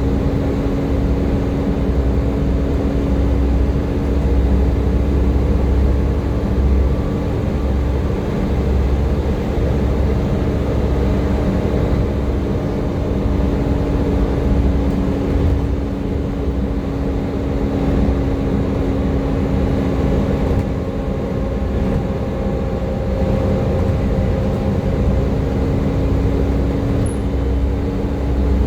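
Volvo B7TL double-decker bus engine running under way, a steady "Hoover" whine held over a low rumble that swells and eases as the bus pulls and lifts off.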